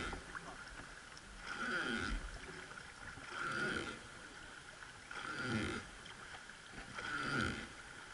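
Wooden oar of a traditional river boat being rowed: a creak and a splash of water with each stroke, four strokes about two seconds apart.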